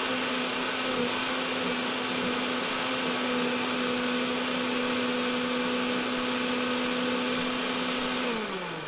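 Electric blender running steadily, puréeing a liquid marinade of chopped apple, garlic, scallions and ginger until smooth. Near the end it is switched off and the motor winds down with a falling pitch.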